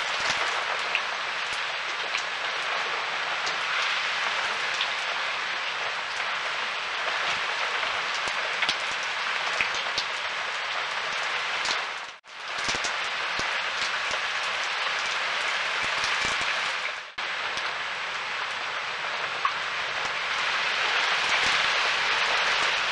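Pouring rain falling steadily: a dense even hiss with scattered sharp ticks. It cuts out briefly twice, about twelve and seventeen seconds in.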